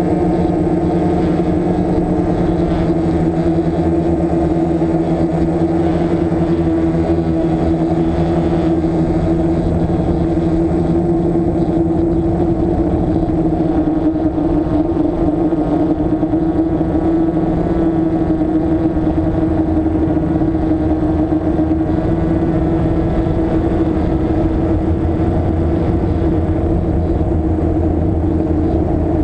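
DJI F550 hexacopter's six electric motors and propellers whirring steadily in flight, heard up close from the camera it carries: a loud, even hum whose pitch wavers slightly.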